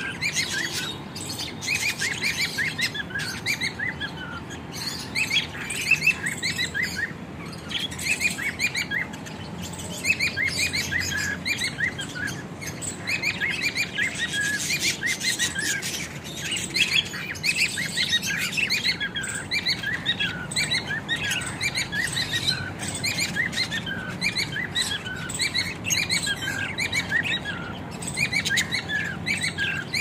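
A flock of budgerigars chattering continuously, many quick, overlapping chirps and warbles running without a break.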